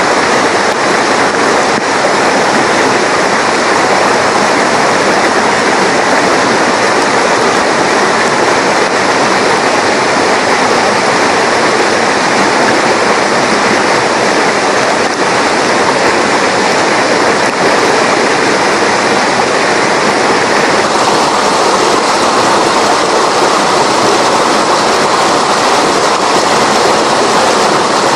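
Rain-swollen mountain river in flood, its water rushing loudly and steadily. The sound shifts in tone about three quarters of the way through.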